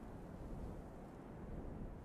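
Steady low wind rumble.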